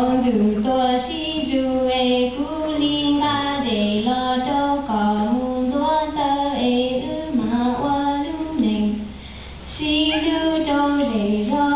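A voice singing a traditional Hmong song, the melody stepping between held notes, with a short break between phrases about nine seconds in.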